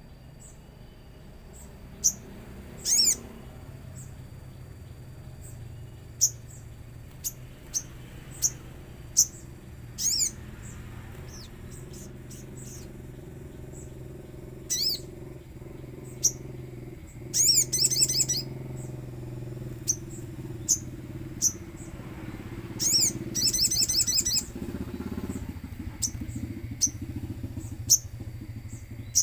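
A little spiderhunter (sogon) calling: scattered sharp, high single chips, with two rapid trills, one a little past halfway and one about four-fifths of the way in. Under it runs a steady low hum.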